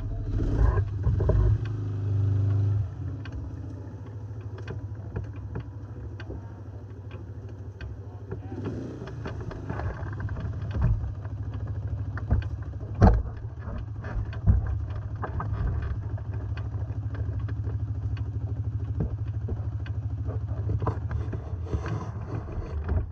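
ATV engine idling steadily, louder in the first few seconds as a quad moves off, with a couple of sharp knocks about halfway through.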